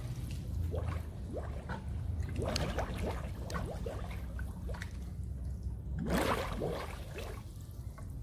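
Pool water gurgling and splashing around a camera held at the surface, with many short bubbly gurgles and a louder gush about six seconds in.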